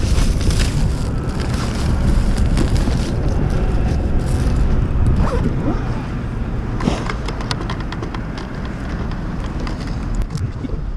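Plastic carrier bag and foil-lined insulated delivery bag rustling and crinkling as a takeout order is packed, over steady wind rumble on the microphone. Several sharp clicks come later on.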